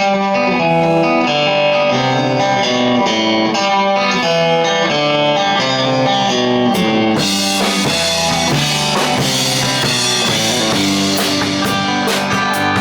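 Live band playing the instrumental intro of a song, with guitar and drums. The sound grows fuller and brighter about halfway through.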